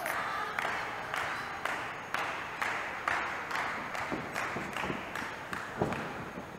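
Wrestling crowd clapping in unison, a steady rhythmic clap about twice a second.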